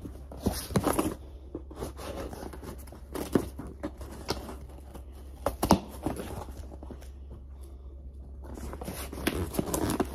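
Cardboard shipping box being handled and pulled open by hand: irregular scraping and rustling with a few sharp knocks, the loudest just past halfway.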